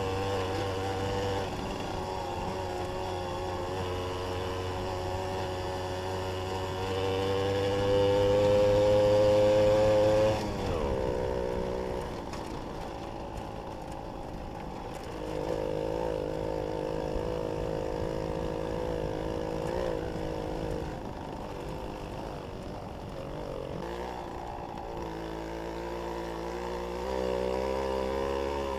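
Jawa 555 moped's 50 cc two-stroke single-cylinder engine running under way. It revs up to its loudest about eight to ten seconds in, drops sharply in pitch, then rises and falls again in waves as the throttle is worked.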